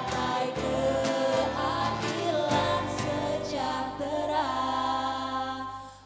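Indonesian party anthem song: singing over an instrumental backing with regular drum hits. The music drops away briefly near the end.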